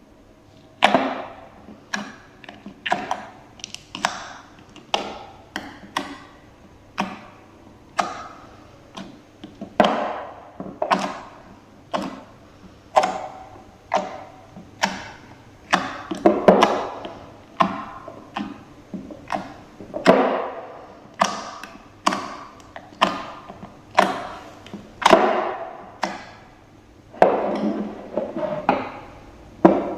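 Slime being pressed and squeezed by hand, giving sharp wet squelches and pops about once or twice a second, each fading quickly.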